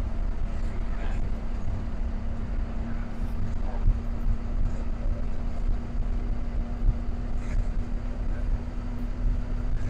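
Bus engine and road noise heard from inside while driving: a steady low rumble with a constant hum, and a couple of light knocks.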